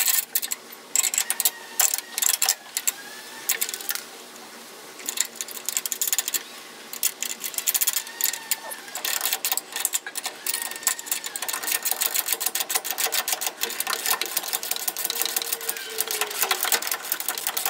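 Hand socket ratchet clicking rapidly as bolts are wound in and tightened, in runs of fast clicks with short pauses between strokes.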